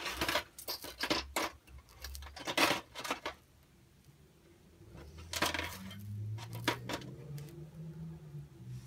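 Small metal drum-brake hardware (hold-down caps, springs and pins) clinking and rattling as it is picked through by hand: a quick run of sharp clicks in the first few seconds, a short pause, then more scattered clinks over a faint low hum.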